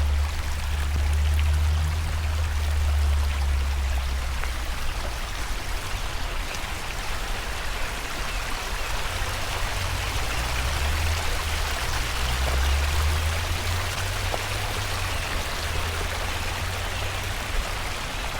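Stream water running and splashing in a steady rushing hiss, with a low rumble that swells in the first few seconds and again around the middle.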